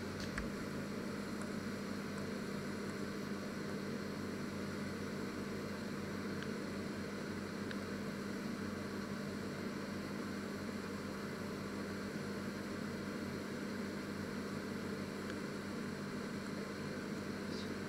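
Panasonic inverter microwave oven running with its top grill elements on: a steady hum with a low tone and fan noise.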